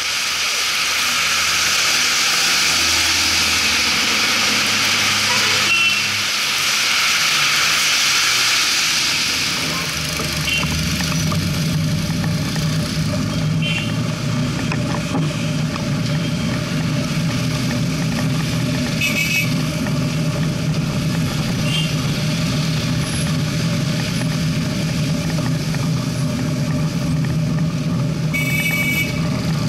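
Heavy rain hissing down on a street for about the first ten seconds, with vehicles passing on the wet road. Then street traffic heard from a moving bicycle: a steady low rumble of engines and road, with several short vehicle-horn toots, the longest near the end.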